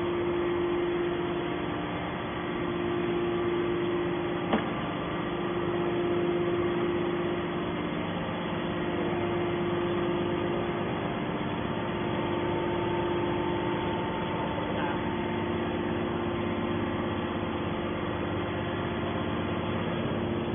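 Hydraulic can baler's pump motor running with a steady hum, with a single click about four and a half seconds in.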